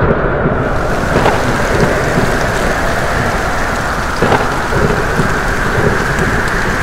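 Thunderstorm sound effect: steady heavy rain, with thunder cracking about a second in and again near four seconds.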